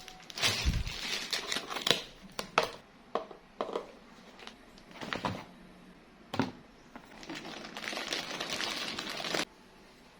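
Plastic crinkling and handling: a string of crinkles and sharp clicks, then a steadier rustle that cuts off suddenly near the end.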